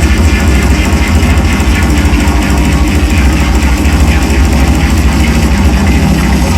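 Loud, dense wall of psychedelic drone noise music performed live: a heavy, steady low rumble under a thick distorted hiss, running without break.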